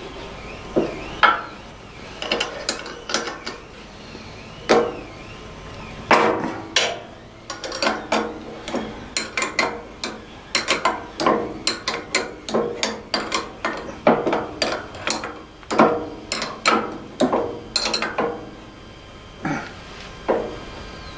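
Steel spanner working nuts and bolts on a bandsaw's steel vice: a run of irregular metallic clicks and clinks as the nuts are turned and the spanner is repositioned, busiest through the middle.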